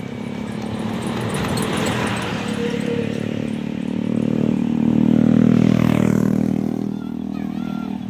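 A bus driving past close by, its engine growing louder to a peak about five and a half seconds in, then fading away.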